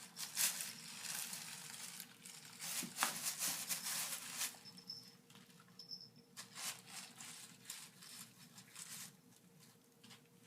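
A plastic bag crinkling as a cat licks it, a quick run of crackles from her tongue on the plastic. The licking comes in two spells with a short lull in the middle, then eases off near the end.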